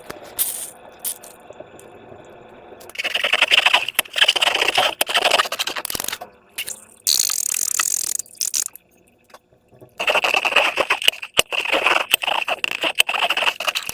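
Slime being worked by hand, with dense crackling and clicking in two long stretches and a short hiss between them.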